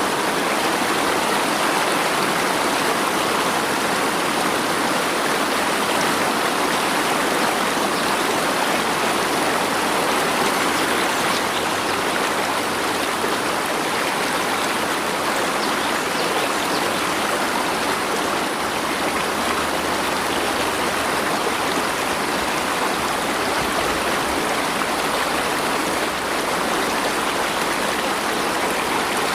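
Flowing water rushing steadily, like a stream, an even unbroken noise with no distinct drops or splashes.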